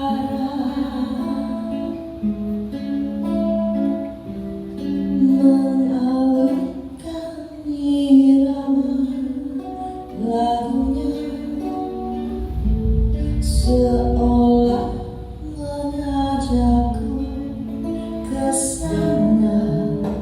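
A slow song playing, with plucked strings, a melody line over them and a deep bass line that is strongest about two-thirds of the way through.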